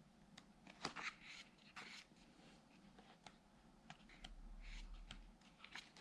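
Faint rustling and soft crinkles of paperback book pages being turned by hand, with a few light paper clicks.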